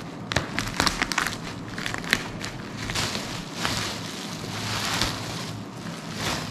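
Plastic bubble wrap crackling and rustling as it is cut open with scissors, with sharp clicks for the first couple of seconds, then a denser crinkling as a box is pulled out of the wrap.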